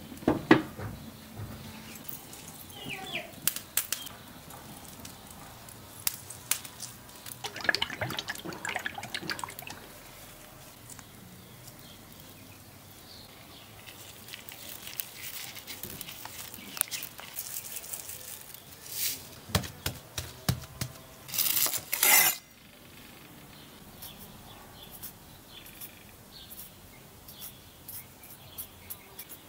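Food-handling sounds: beef bones set down on a kamado grill's metal grate with loud knocks and clinks at the start, then scattered taps, rustles and clicks of meat and a garlic clove being handled with a knife. About two-thirds of the way through comes a loud burst of noise lasting about a second.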